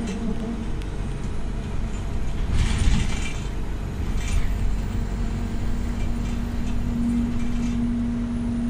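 City bus engine and drivetrain running while underway, heard from inside the passenger saloon. There is a short burst of air hiss about two and a half seconds in, and a steady whining tone in the last couple of seconds.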